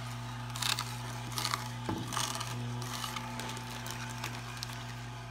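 Omega J8006 masticating juicer running: a steady low motor hum under irregular crackling and snapping as its slow auger crushes celery stalks, thickest in the first half.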